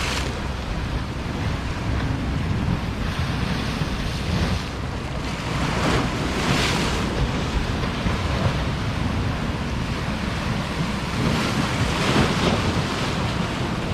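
Wind buffeting the microphone over surf washing on the shore, with a few louder surges.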